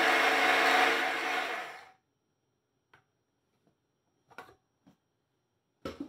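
Cookworks electric blade coffee grinder running on a charge of coffee beans, a steady whirring motor note. It cuts out about two seconds in and winds down. A few faint clicks and knocks follow.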